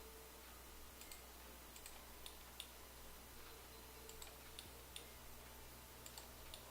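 Faint computer mouse clicks, about a dozen scattered irregularly, over a low steady hum.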